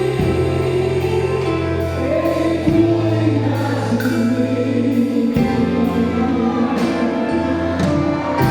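Choir singing gospel music over instrumental backing, the sustained bass notes changing chord about every two and a half seconds.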